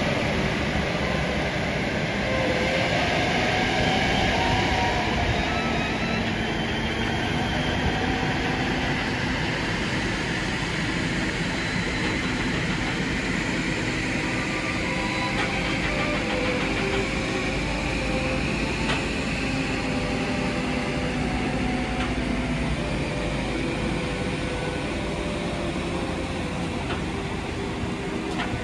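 Heavy-haul convoy running slowly: a truck's diesel engine and the multi-axle Goldhofer modular trailer's machinery making a steady low rumble, with a faint whine that slowly rises in pitch.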